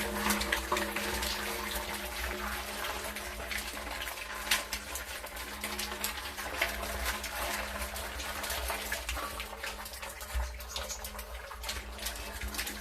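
Water splashing and running steadily, with many small sharp drips and splashes, over a faint steady low hum.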